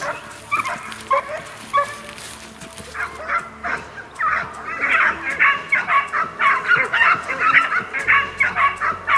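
A pack of Italian black-and-tan hounds (segugio italiano nero focato) baying on the trail of a hare: a few separate yelps at first, then from about three seconds in a dense chorus of repeated bays, several a second.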